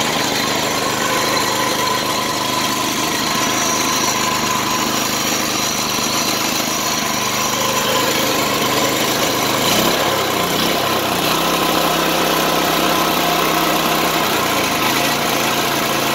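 Briggs & Stratton Vanguard 7.5 HP engine on a reel mower, running steadily. About ten seconds in its speed shifts and holds at a new pitch, settling back near the end.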